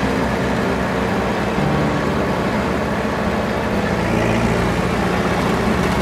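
Bulldozer engine running steadily as the machine drives along.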